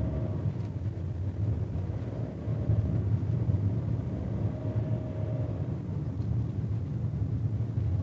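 Engine and road noise inside a moving Suzuki car's cabin: a steady low rumble.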